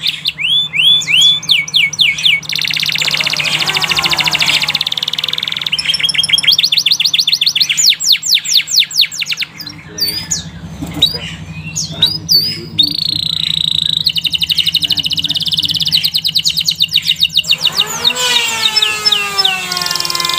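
Domestic canary singing a long, continuous song of quick trills and rolls: runs of falling chirps, buzzing rolls held for a few seconds, and rapid repeated notes, switching phrase every few seconds. A faint steady low hum sits underneath.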